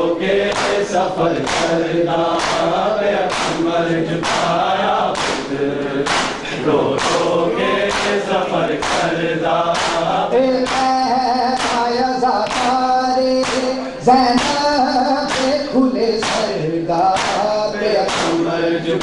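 A noha recited in a chant by a lead male voice with a group of men singing along, over the steady slaps of matam, open hands beating on chests a little over once a second.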